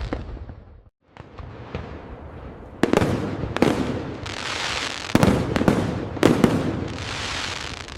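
Fireworks display: a crackling tail fades and cuts out about a second in. Small pops follow, then four loud shell bursts, each trailed by a crackling hiss.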